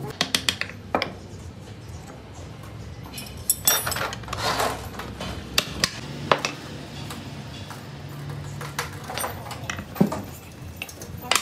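Metal parts of a Hino FM1J truck gearbox clinking and knocking together as a bearing and housing are fitted by hand with a spanner. The clinks are irregular: a quick run about a second in, another cluster around four seconds in, and a single louder knock near the end.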